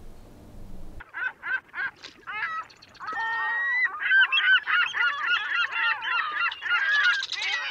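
A chorus of honking animal calls, goose-like: scattered short calls start about a second in, with one longer held call near the three-second mark, and the calls thicken into a dense overlapping din from about four seconds on.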